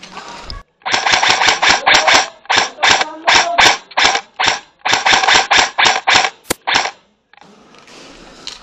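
Airsoft rifle firing a rapid string of sharp shots, about four a second, some in quick clusters, for about six seconds.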